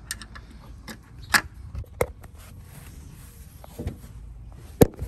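Several sharp clicks and knocks, about five, the loudest about a second and a half in and near the end: hands and tools handling a car's fender edge and door while working loose the fender's fasteners.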